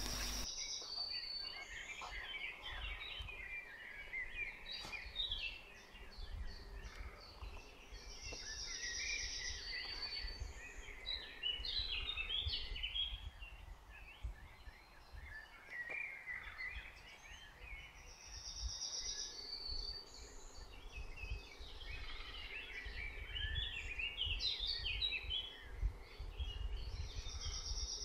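Woodland birds singing at dusk: a busy run of chirping notes, with a short, high, bright phrase that comes back every eight to ten seconds. A low rumble sits underneath.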